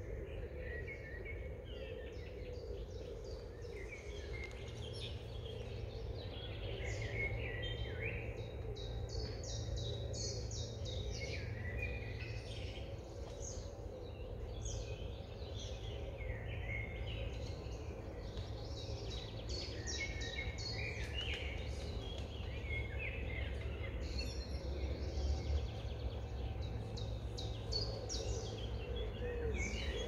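Several songbirds singing and chirping at once, a busy spring bird chorus of short trills and chirps throughout, over a steady low rumble.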